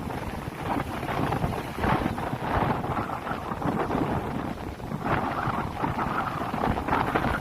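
Strong sea wind buffeting the microphone, a rumbling rush that rises and falls in gusts.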